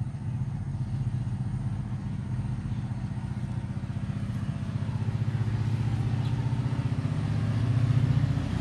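A small engine running steadily with a low, rapid pulsing, getting louder near the end.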